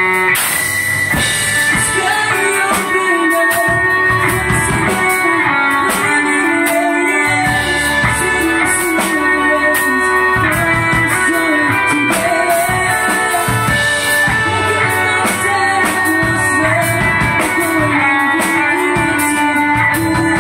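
Live rock band playing loud: electric guitars, electric bass and a drum kit.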